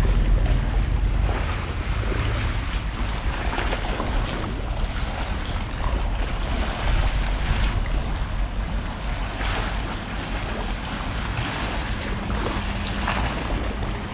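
Wind buffeting the microphone with a steady low rumble, over water washing against the shore, with a few louder splashes.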